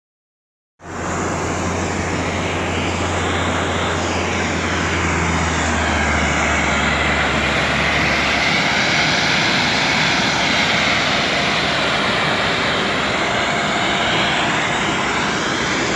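Airliner engines running: a loud, steady rush that starts abruptly about a second in, with a slowly sweeping hiss in the upper range and a low hum underneath that drops out about halfway.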